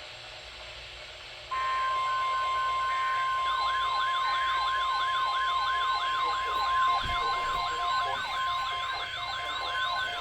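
Weather radio alert sounding: a steady 1050 Hz NOAA Weather Radio warning tone comes on about a second and a half in. About two seconds later a siren-style receiver alarm joins it, sweeping up and down about three times a second.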